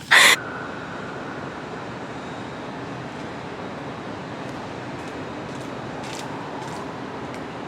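A short, loud burst at the very start, then a steady, even rush of background noise with no clear events in it.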